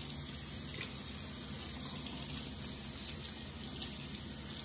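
Kitchen sink tap running steadily, the water splashing over gloved hands as they are washed under it.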